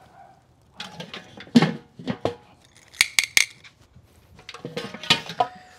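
Sharp metallic clinks and knocks as the lid is set onto a Weber charcoal kettle grill and the grill is handled, with a quick run of clicks about three seconds in.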